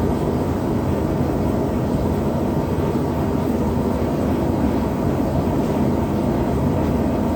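Small forge burner running steadily with an even rushing noise, turned up to bring a steel knife blade up to near-critical heat for normalizing.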